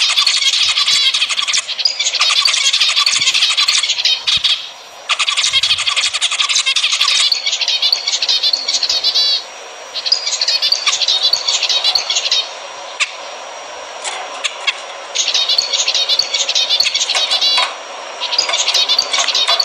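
Zebra finches singing: about seven bursts of busy, high-pitched song, each two to three seconds long, with short pauses between them.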